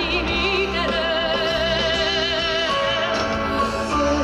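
Music: a voice holding long notes with a wide vibrato over a full instrumental accompaniment.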